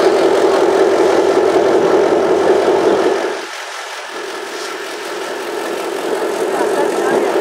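Diesel train engine running with a steady, constant drone. About three and a half seconds in, the sound drops in level and loses its low rumble, then carries on steadily.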